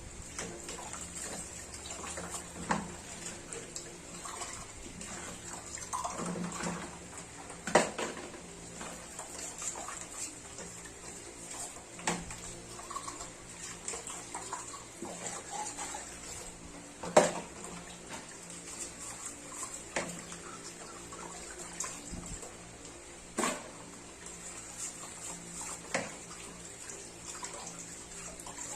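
Tap water running steadily as baby feeding bottles are rinsed under the faucet, with occasional sharp knocks as the bottles and parts are handled.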